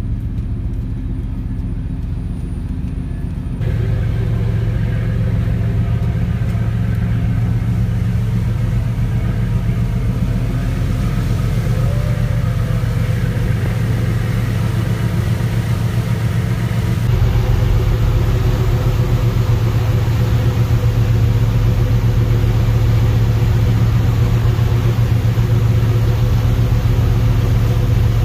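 RoRo ferry's engines droning steadily, with a rushing hiss over the low hum. The drone gets louder in steps a few seconds in and again about two-thirds of the way through.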